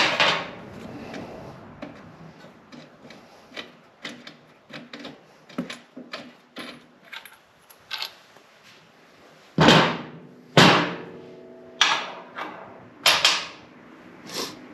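Metal parts and hand tools being handled: scattered clicks and knocks, then several loud clanks that ring briefly, as old rear shock absorbers and their bolts are handled during a motorcycle shock swap.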